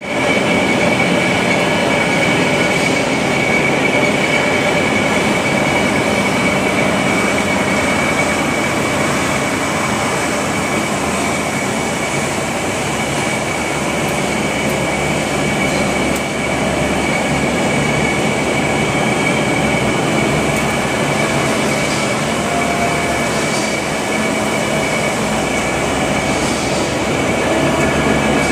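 Steel coil slitting line running: sheet steel paying off the coil through the rollers and slitter, a loud, steady machine noise with a steady high whine over it.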